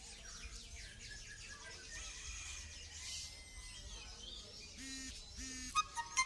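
Many birds chirping and twittering, a busy mix of small high calls, with several louder, sharper calls near the end.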